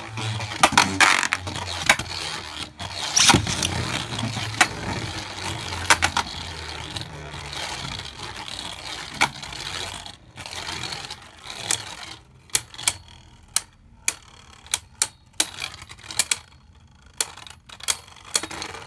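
Two Beyblade Burst QuadDrive spinning tops battling in a plastic stadium: a loud scraping whir of their tips on the floor with rapid clacks as they collide. After about ten seconds it thins to separate sharp clacks, several a second.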